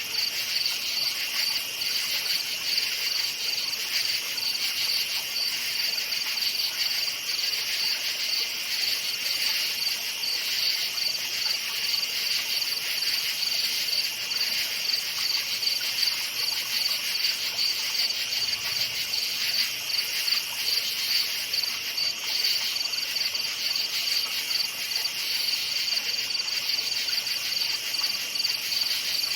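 Night chorus of crickets chirping continuously, a steady high-pitched, rapidly pulsing trill.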